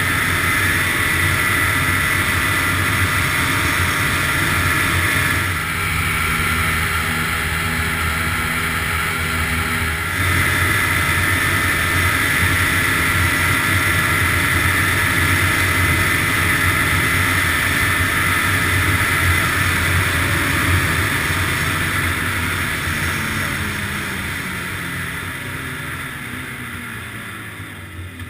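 Ski-Doo snowmobile engine running steadily under way, with track and wind noise; over the last several seconds its pitch falls and it grows quieter as the machine slows.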